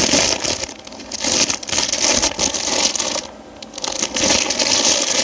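Plastic packaging crinkling and crackling as it is handled, with a short pause partway through.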